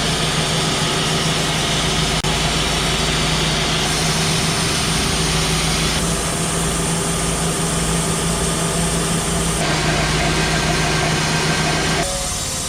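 An engine running steadily at constant speed, its sound shifting abruptly several times.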